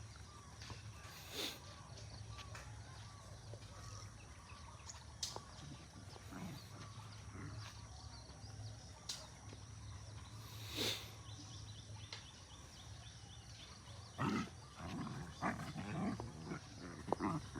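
Dog vocalizing in short, low growl-like bursts near the end, over a steady low hum and scattered small clicks.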